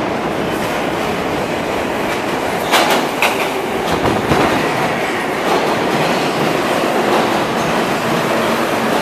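New York City subway train pulling into the station and running past along the platform, a steady rumble of wheels on rails with sharp clickety-clack over the rail joints, loudest about three seconds in.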